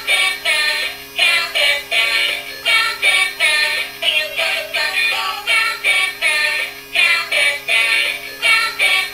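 Dalmatian ice cream cart walking toy playing its built-in electronic song: a high-pitched synthesized voice singing a quick, bouncy tune.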